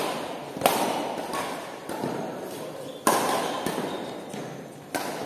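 Badminton rackets striking a shuttlecock in a fast doubles rally: several sharp smacks roughly a second apart, each trailing off in a long echo in the large hall.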